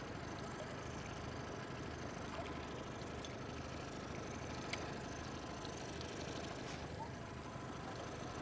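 Steady low mechanical hum with faint steady tones, like a motor running at idle, and one small click about halfway through.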